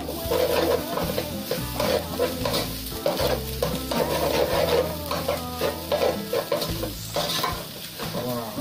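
A metal spoon stirring and scraping fried rice in a metal pot in quick, irregular strokes, over a light sizzle of frying.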